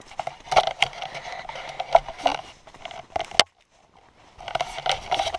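Footsteps crackling through dry fallen leaves, with rubbing and knocking from a handheld camera; the sound cuts out almost to silence for about a second past the middle.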